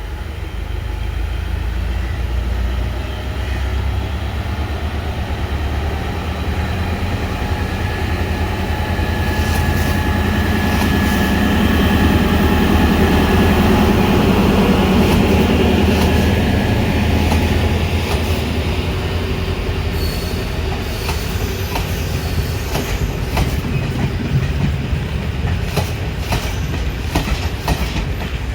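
Sri Lanka Railways Class S11 diesel multiple unit running on the track, its engine hum growing louder toward the middle with a faint high wheel squeal at the loudest point. In the last third the wheels click steadily over the rail joints.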